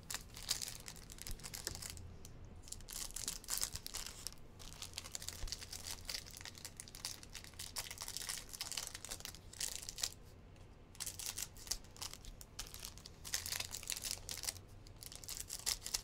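Thin plastic wrappers on trading-card packs crinkling and tearing in a run of irregular crackles as they are handled and opened, over a faint low steady hum.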